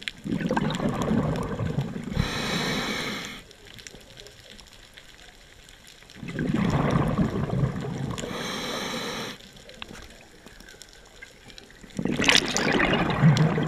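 A scuba diver breathing through a regulator underwater: three breaths about six seconds apart, each a rush of bubbling exhaust with a short hiss, quieter between breaths.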